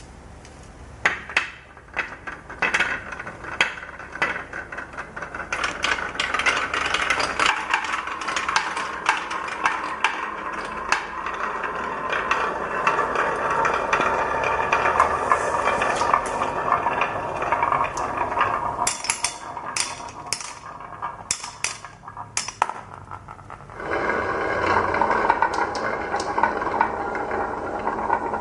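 Marbles rolling and clattering down a marble run, with many sharp clicks as they drop and knock against the track and each other. Through the middle there is a long, dense rolling rattle, and the sound changes suddenly a little before the end.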